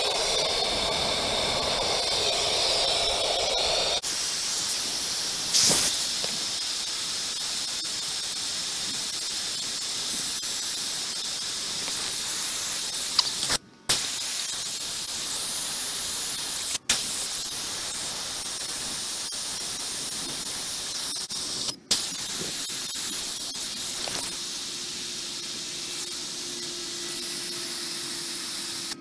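Air hissing steadily out of four 37x12.5R17 off-road tires at once through a DIY four-tire deflation manifold as they are aired down. A brief louder burst of hiss comes about six seconds in, and the hiss drops out briefly three times.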